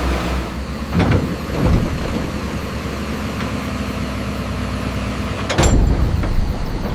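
Heavy construction machinery engine running steadily, with loud clanking knocks about a second in, again shortly after, and a louder one near the end.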